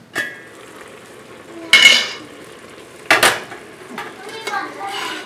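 Metal lid lifted off a stainless steel stockpot with a ringing clink, then a loud metallic clang about two seconds in as the lid is handled. A spoon knocks against the pot about three seconds in and scrapes around as the boiling rhubarb is stirred.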